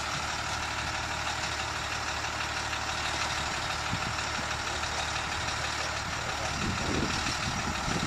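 A steady engine hum at an idle-like level, unchanging throughout.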